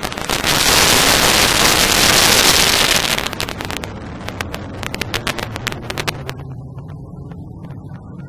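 Jet engines of three fighter jets flying low overhead in formation: a loud roar that peaks as they pass, then turns crackly about three seconds in and fades to a low rumble as they fly away.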